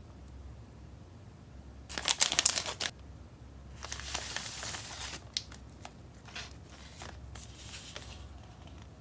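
Plastic wrapper of a marshmallow pack torn open with a short, loud crackling rip about two seconds in. The plastic film then crinkles for a while as the inner plastic tray is worked out of it, with a few smaller crinkles near the end.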